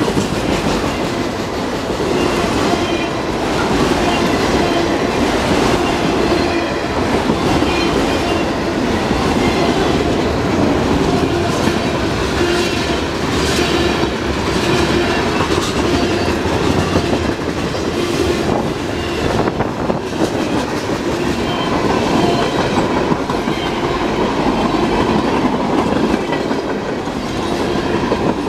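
Cars of a mixed freight train rolling past: a steady, continuous rolling noise of steel wheels on rail, with irregular clicks as the wheels cross the rail joints.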